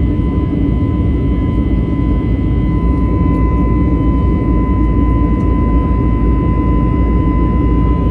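Airbus A321neo in flight, heard from inside the cabin beside the wing: a steady deep roar of its CFM LEAP-1A turbofan engines and airflow, with a thin high whine held at one pitch on top.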